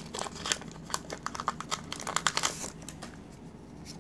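Foil wrapper of a Pokémon trading-card booster pack crinkling and crackling in the hands as it is opened. A fast run of crackles that thins out after about two and a half seconds.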